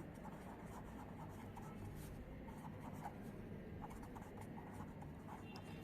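Faint scratching of handwriting, a pen moving in short strokes across the writing surface, likely as the drug name is written down.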